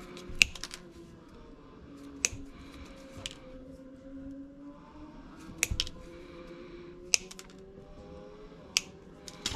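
Hand-held wire cutters snipping through the ends of thin 14–16 gauge harness wires: a series of sharp snips, one every second or two, with a quick pair a little past the middle.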